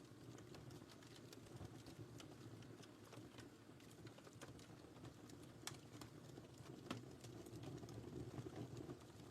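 Wood fire crackling in a fireplace, faint: a steady low rumble of burning with scattered sharp pops and snaps, a few louder ones after the middle.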